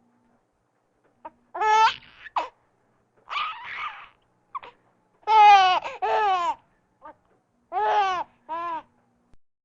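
Baby laughing in short, high-pitched bursts with silent pauses between them.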